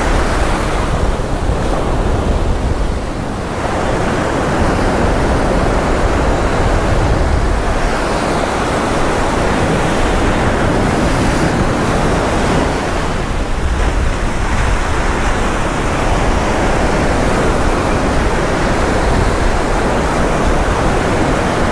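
Ocean surf breaking and washing up the sand, a continuous rushing noise, with wind buffeting the microphone as a low rumble.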